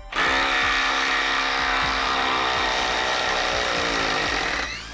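Craftsman cordless impact driver hammering in reverse to back a long fastener out of a tough log. It runs loudly and steadily for about four and a half seconds, speeding up just before it stops near the end as the fastener comes free.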